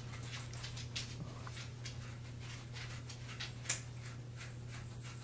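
Faint clicks and light rattles of a handheld shower head and its metal hose being handled and screwed together by hand, with one sharper click near the end, over a steady low hum.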